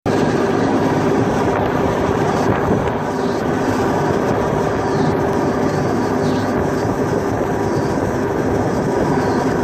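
Pilot boat's diesel engines running steadily alongside a container ship: a loud, constant machinery drone with a steady hum over a rushing wash.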